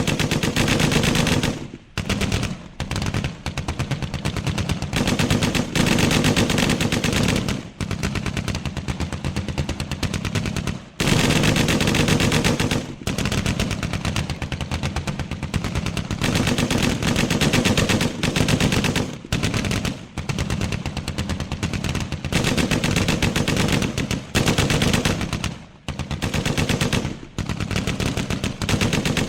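Sustained automatic gunfire: machine guns firing long rapid bursts of many shots a second, with short pauses between bursts.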